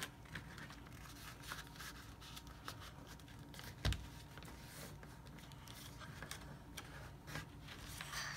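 Sheet of printer paper rustling and crinkling under the fingers as it is folded and creased, with scattered faint crackles and one louder thump about four seconds in.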